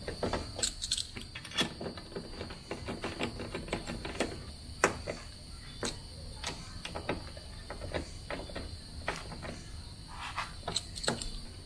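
Scattered sharp metallic clicks and ticks of a screwdriver undoing the door striker bolts on a Toyota AE86's door pillar. Under them, a steady high insect chirr, like crickets, runs throughout.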